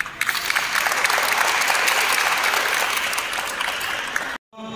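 A group of people applauding, with dense clapping that starts just after the beginning and cuts off suddenly near the end.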